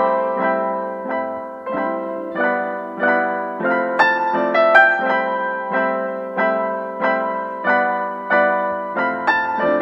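Background piano music: notes and chords struck at a steady, unhurried pace, each ringing and fading.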